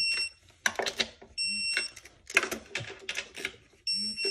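Electronic torque wrench beeping three short times as intake manifold bolts reach the 15 N·m setting, with ratchet clicking between the beeps.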